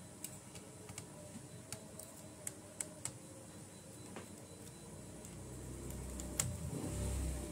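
Scattered small clicks and taps of parts and tools being handled on an opened laptop during reassembly, with a low rumble swelling near the end.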